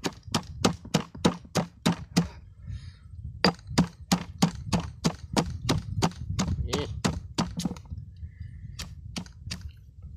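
Stone pestle pounding red chilies in a granite mortar: sharp strikes about three a second, a break of about a second a little after two seconds in, then another run of strikes, thinning to a few slower ones near the end.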